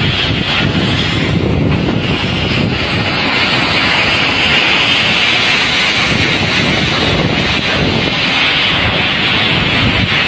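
Typhoon-force wind and heavy rain: a loud, steady rushing noise that swells and eases slightly without letting up.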